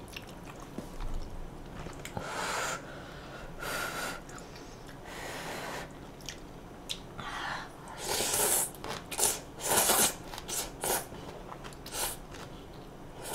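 Close-miked eating sounds as someone eats udon: a few soft, breathy slurps in the first half, then a busier run of chewing with sharp wet mouth clicks.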